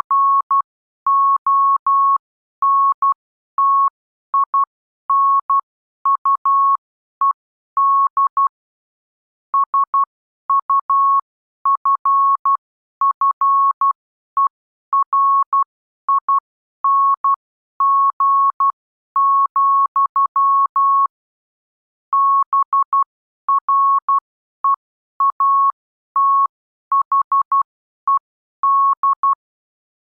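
Morse code (CW) practice tone: a single steady tone of about 1 kHz keyed on and off in dots and dashes, with short gaps between letters and longer ones between words, spelling out plain-language text.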